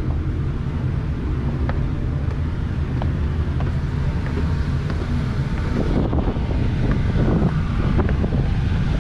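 Steady low rumble aboard a cruise ship under way, with wind on the microphone and a few faint clicks.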